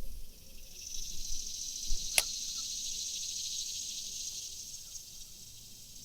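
High-pitched insect drone, as of cicadas or similar summer insects, swelling in about a second in and slowly fading toward the end. A single sharp click about two seconds in.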